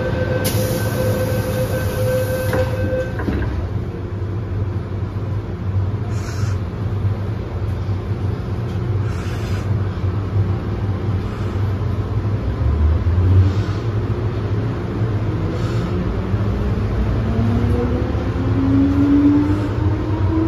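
MTR first-generation M-train car pulling out, its low running rumble marked by a few clicks over track joints. A steady two-pitch tone sounds for the first three seconds, and from about two-thirds of the way through, the traction motors' whine rises steadily in pitch in several layers as the train accelerates.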